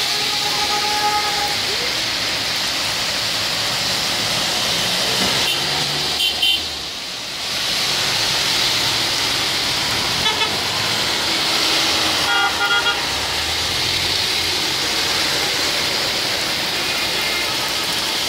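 Very heavy rain pouring down on a flooded road, with cars hissing past on the wet tarmac. Short car-horn toots sound a few times in the middle, including a quick run of beeps about two-thirds through.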